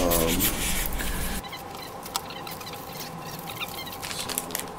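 Light rustling and scattered small clicks of a clear plastic packet holding a roll of foil tape being picked up and handled, the crinkling busier near the end.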